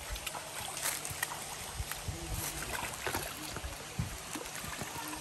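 Water splashing and sloshing in a shallow rocky stream as a dog is washed in it by hand: many small, irregular splashes over the stream's steady running water.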